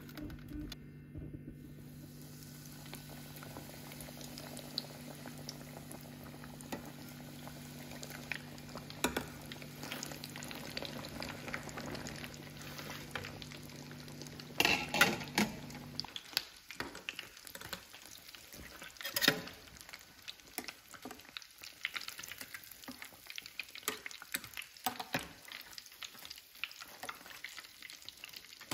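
Panko-breaded mac-and-cheese blocks deep-frying in hot oil in a stainless steel pot: continuous bubbling and fine crackling. A steady low hum stops about halfway through, and there are two louder clatters around the middle.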